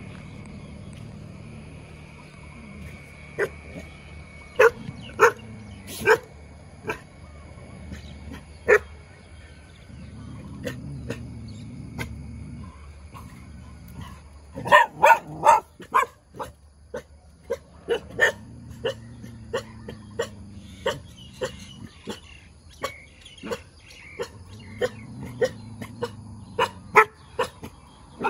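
Dog barking in short, sharp barks: a few scattered at first, a quick run of barks about halfway through, then barking at about two a second through the second half.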